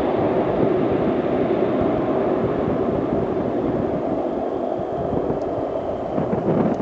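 The two Rolls-Royce Dart turboprop engines of a Hawker Siddeley Andover C1 running on the runway, a steady rushing drone of turbine and propellers.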